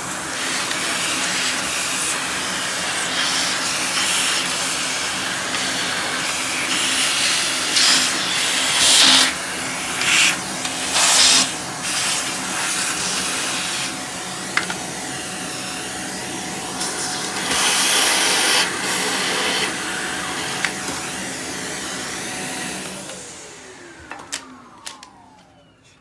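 Canister vacuum cleaner running, its metal wand sucking dust out of a robot vacuum's dustbin. The rushing sound gets louder a few times as the nozzle is worked over the bin, then near the end the motor is switched off and winds down with a falling whine.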